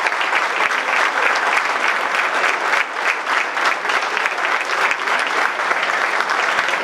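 Applause from a crowd of people clapping, steady throughout.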